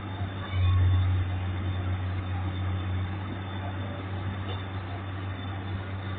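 Komatsu PC200 excavator's diesel engine running with a steady low hum, swelling louder for about a second starting about half a second in.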